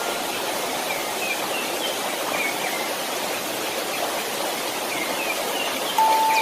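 Steady rushing white noise that sounds like running water, with faint short bird chirps scattered through it. A single sustained chime note starts near the end.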